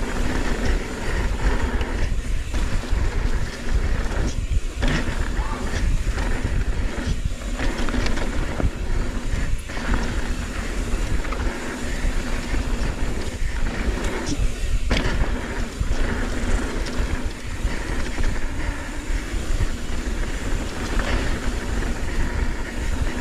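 Mountain bike running fast down a dirt trail: tyre noise and heavy wind rumble on the microphone, with the bike rattling and knocking over roots and rocks many times.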